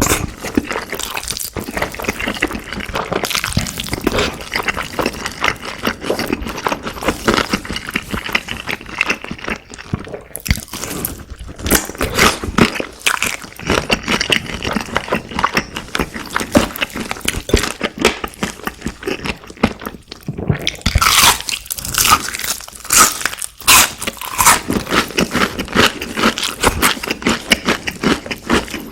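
Close-miked eating of crunchy fried food: dense, crackly crunching and chewing, with a brief pause about twenty seconds in.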